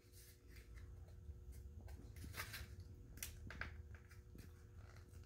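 Faint handling noises of a small knife box being turned and worked open by hand: soft scattered clicks and scrapes, a few a second at most, over a faint low hum.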